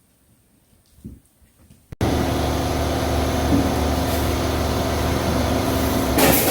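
A steady machine drone with a low hum, starting abruptly about two seconds in after near quiet, with rattling clicks joining it near the end.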